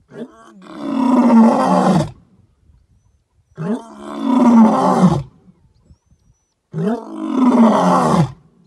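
An animal roar like a big cat's, three times in a row, each about two seconds long with short silences between.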